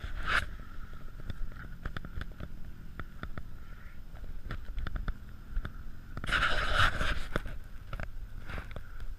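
Polaris Outlaw 90 youth quad running over rough ground: a steady engine drone under low rumble, with many short clicks and rattles. A louder rush of noise comes about six seconds in and lasts under a second.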